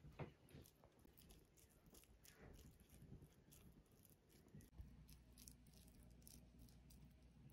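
Near silence: faint room tone with scattered small clicks and taps, and a low steady hum that becomes more noticeable about five seconds in.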